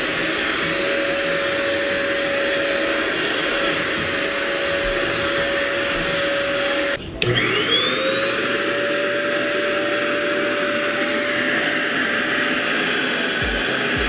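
A JK-8 1000-watt vacuum cleaner runs with a steady motor whine and suction rush. About halfway through it cuts out for a moment, then starts again, its whine rising in pitch as the motor spins back up.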